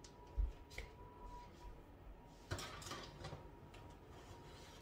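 Oven door and metal baking sheet being handled as a tray goes into the oven: a knock about half a second in, then a longer clatter about two and a half seconds in.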